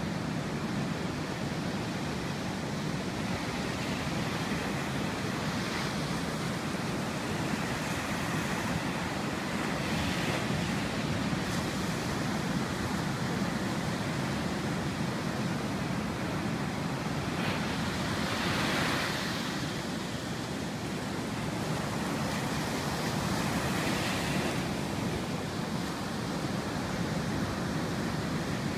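Ocean surf of 4-to-6-foot waves breaking and washing up the beach: a continuous rushing, with swells of hiss as each wave breaks, the biggest about 18 seconds in.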